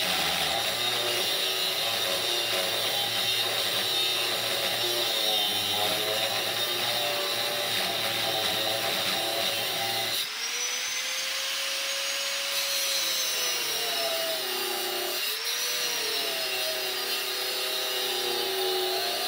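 A power tool running steadily as it cuts a shelf for a carbide tip into a lathe tool bar. About ten seconds in, the sound changes abruptly and the motor's pitch rises and falls as the load varies.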